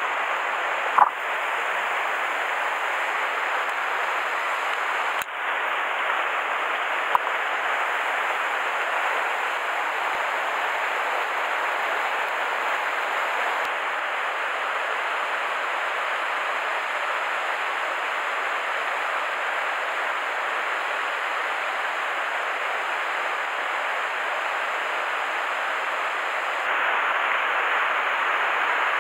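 Steady rush of a mountain stream's flowing water, with a few sharp clicks: one about a second in, one around five seconds, and a fainter one a couple of seconds later.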